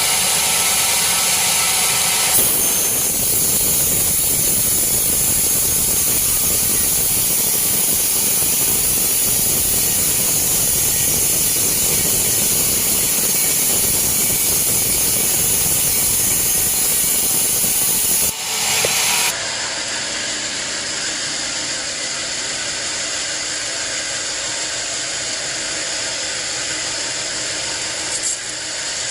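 Sawmill band saw cutting a teak log: a loud, steady hissing saw noise. About eighteen seconds in it drops abruptly to a quieter, steady machine running sound.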